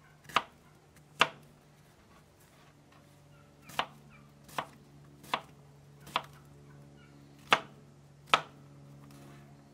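Chef's knife chopping an onion on a plastic cutting board: eight separate chops, two early, then a pause of about two and a half seconds before six more spaced under a second apart, the last two the loudest.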